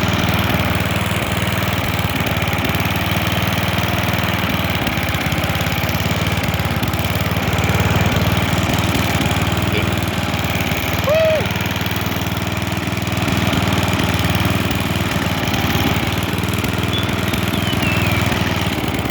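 Pulley-swapped riding lawnmower's small engine running steadily as the mower is driven, a dense low drone. The engine runs with its governor removed. A brief rising-and-falling chirp sounds about eleven seconds in.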